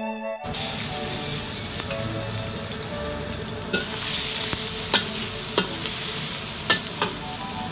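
Diced shallots sizzling in hot oil in a wok, a steady hiss. From about four seconds in, a spatula scrapes and knocks against the wok in sharp clicks as the shallots are stirred.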